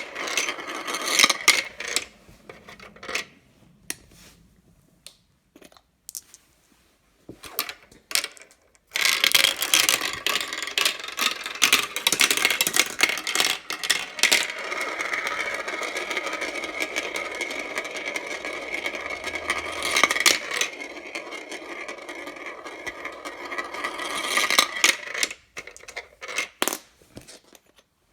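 Marbles rolling and clicking along a marble run. Scattered clicks give way to a few seconds of near quiet, then a long stretch of steady rolling noise with clicks running through it from about nine seconds in, which breaks up into separate clicks near the end.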